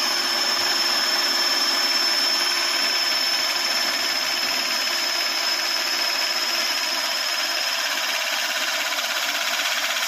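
Jainson Jupiter-400 battery-powered hydraulic crimping tool running through a crimp cycle on a 300 sq mm aluminium terminal: its motor and hydraulic pump run steadily under load, with a high whine held throughout.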